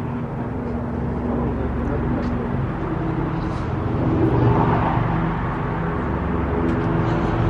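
Motor-vehicle traffic: a steady engine hum and road noise that swells about four seconds in, as a vehicle passes.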